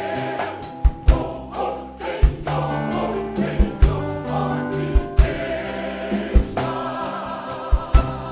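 Choir singing a gospel song with band accompaniment, drum beats landing every second or so under the sung notes.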